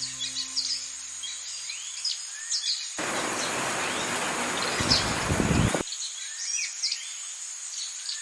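Songbirds chirping and calling throughout over a steady high hiss. A singing bowl's tone fades out in the first two seconds. About three seconds in, a loud rushing noise, heaviest in the lows, swells for nearly three seconds and then cuts off abruptly.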